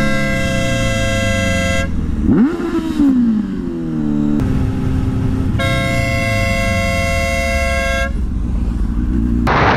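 Two long, steady vehicle horn blasts of about two seconds each, a few seconds apart, over a motorcycle engine running; between them the engine revs briefly up and back down.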